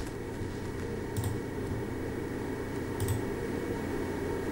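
TerraMaster F2-NAS2's cooling fan running steadily at its maximum speed setting: a low hum with a faint whine, a bothersome noise. A couple of faint clicks are heard about a second in and about three seconds in.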